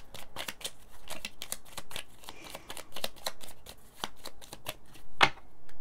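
A small deck of Lenormand cards being shuffled by hand: a rapid, irregular run of card flicks and slaps, with one sharper snap about five seconds in.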